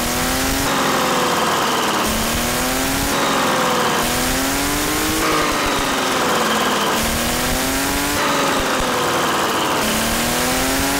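Artus V12 model engine running, its speed rising and falling in repeated sweeps every two to three seconds as it is revved up and down.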